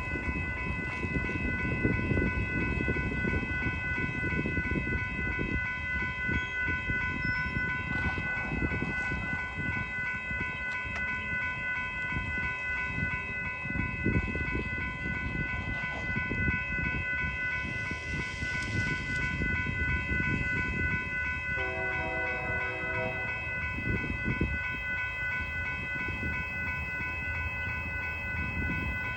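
A train rolling past with a continuous low rumble of wheels on rail, over a steady high-pitched ringing. A short train horn sounds about 22 seconds in.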